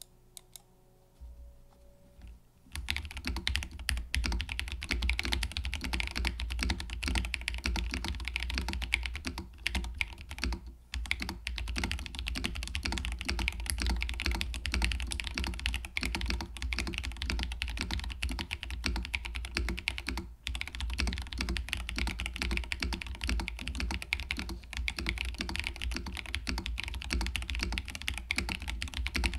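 Mode Sonnet mechanical keyboard, built on a carbon fiber plate in its stack mount with Glorious Panda tactile switches and PBTfans black-on-white keycaps, typed on continuously in a fast run of key clicks. It starts about three seconds in, after a few faint clicks, and breaks off briefly twice, near 11 and 20 seconds.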